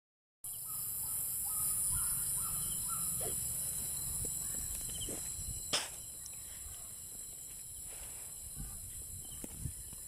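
Night insects chirring in a steady high-pitched chorus from vegetation, with a few short repeated calls in the first three seconds and a single sharp click about halfway through.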